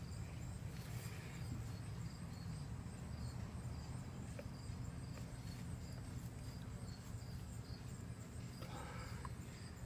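Faint outdoor ambience: insects chirping in a high, evenly pulsing rhythm over a steady low rumble. Soft scrapes of a knife blade on the wooden stump come about a second in and again near the end.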